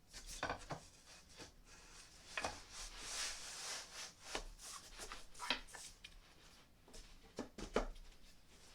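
Wooden flat-pack furniture parts being handled: a scatter of light knocks and clicks, with a scraping rub of wood on wood about three seconds in.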